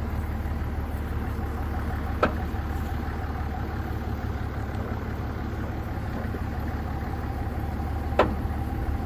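Farm tractor's engine running at a low idle, still cold, with a steady drone. Two sharp clicks or knocks, about two seconds in and again near the end.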